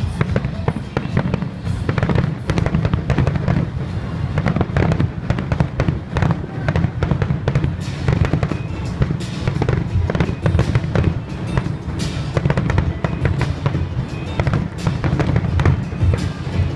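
Fireworks display going off in a dense, continuous barrage of many rapid bangs and crackles.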